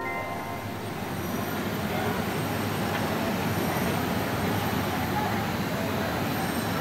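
Monorail train running along its track: a steady rushing rail noise that slowly grows louder.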